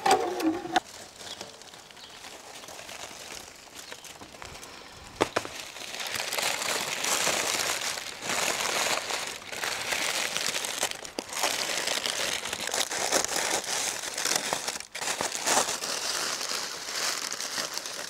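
Baking parchment and aluminium foil crinkling as they are pulled open from around a rack of tandoor-cooked beef ribs, starting a few seconds in and going on in spells. Right at the start, a short scrape from the tandoor's heavy lid sliding across the stone top.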